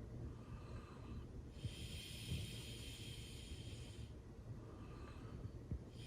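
Golden retriever snoring in her sleep: slow, regular breaths, each with a breathy hiss lasting a couple of seconds, over a low steady rumble. Two breaths come about four and a half seconds apart.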